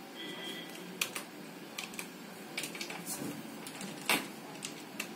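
Fingertips tapping keys on a point-of-sale touchscreen's on-screen keyboard while a password is entered. A scatter of light, irregular taps, the loudest a little after four seconds in, with a short faint high beep near the start.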